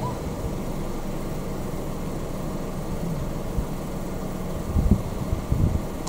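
Steady low background rumble with a faint hum, broken by a few dull low thumps near the end.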